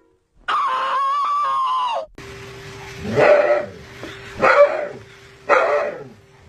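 A dog barking: four single barks about a second apart, over a steady low hum. Before the barks, a wavering held high tone lasts about a second and a half and then cuts off.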